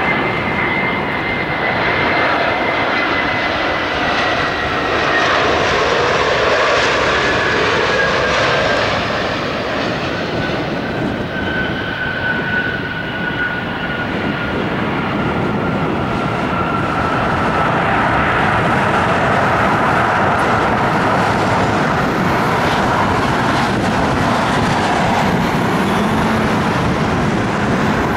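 Airbus A320 jet landing: the engines' whine slides slowly down in pitch as it passes on short final, and after touchdown about halfway through a broad, slightly louder roar of reverse thrust takes over during the rollout.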